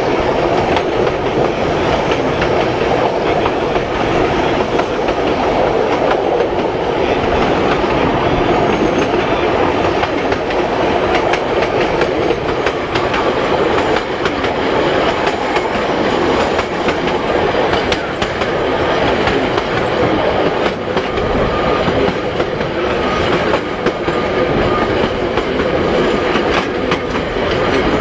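Sightseeing passenger train running along the line, heard from a carriage window: a steady rumble of wheels on rails with repeated clicks from rail joints. A faint thin wheel squeal shows in the last few seconds.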